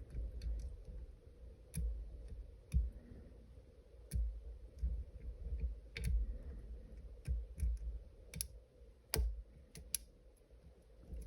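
Irregular sharp clicks and taps of lock picks working the pins of a Robur safe deposit lock, about a dozen over the stretch, with low bumps from handling the lock.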